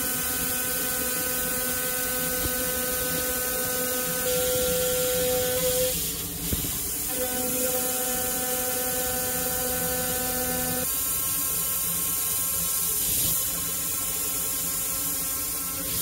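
CNC milling spindle with a small end mill cutting a titanium plate: a steady machine hum and hiss whose tones shift several times during the cut.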